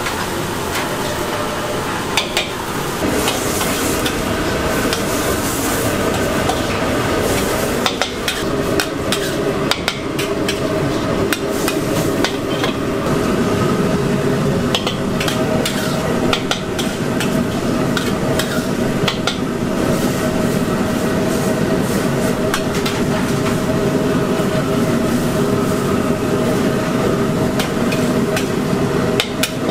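Rice noodles stir-frying in a steel wok over a gas burner: a steady sizzle with frequent scrapes and clanks of the metal spatula against the wok.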